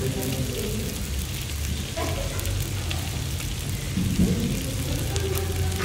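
Pork and sausages sizzling on a tabletop samgyupsal grill pan: a steady crackling hiss with scattered light clicks, and a brief louder low sound about four seconds in.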